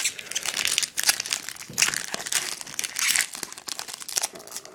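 Foil wrapper of a Topps Chrome trading-card pack crinkling and tearing as it is worked open by hand, an irregular crackle throughout.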